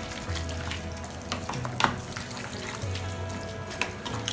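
Grated carrots cooking in ghee in a frying pan, sizzling as a wooden spatula stirs and scrapes through them. Small clicks of the spatula against the pan run throughout, with one sharper knock a little under two seconds in.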